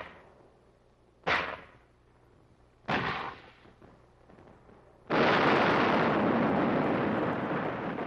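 Gunfire: two separate heavy shots about a second and a half apart, each with a short fading echo. Then, about five seconds in, a loud continuous blast of noise lasting about three seconds.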